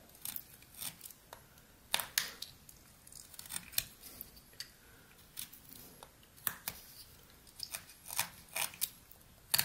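Pocket knife blade cutting into hard pine: a series of short, sharp slicing and scraping cuts at irregular intervals.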